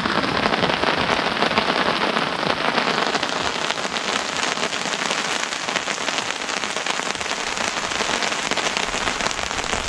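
Rain falling steadily on a camping tarp overhead, a dense, even patter of drops.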